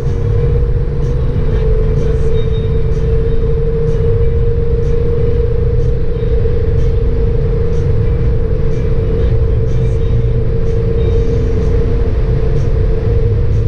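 Cabin noise of a Citroën C6 with the 2.7 V6 HDi diesel cruising at autobahn speed: a steady low rumble of road and wind noise with a steady hum through it. Faint ticks come about once a second.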